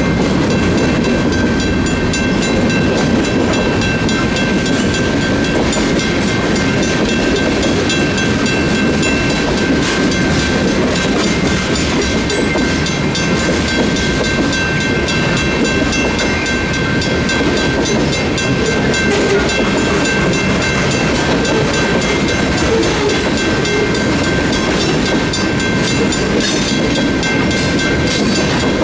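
Freight train cars rolling steadily through a road crossing, with a continuous loud rumble and the clatter of wheels on the rails.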